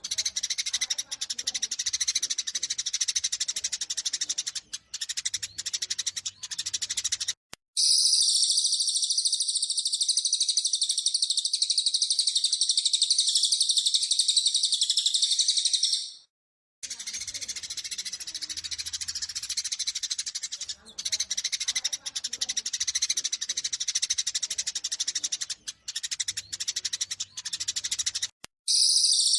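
Eurasian tree sparrows' rapid, agitated fighting chatter. It is twice interrupted by abrupt cuts, and in the middle a louder, denser, continuous high trill runs for about eight seconds.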